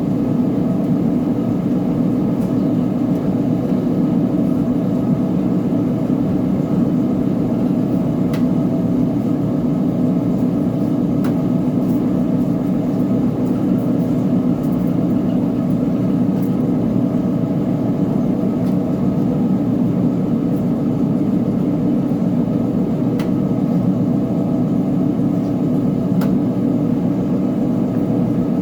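Uni-Mac UniMat 35 commercial washing machine running with a steady low hum, with a few faint ticks.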